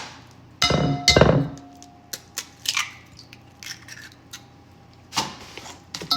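Eggs cracked against the rim of a mixing bowl: two sharp knocks about a second in that set the bowl ringing, followed by lighter clicks and shell noise.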